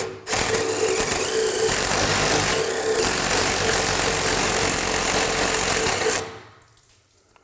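Power drill boring a large hole with a speed bore (spade) bit into the wooden edge of a door, the motor running steadily under load as the bit chews through the wood. It drops out for a moment just after the start and stops about six seconds in.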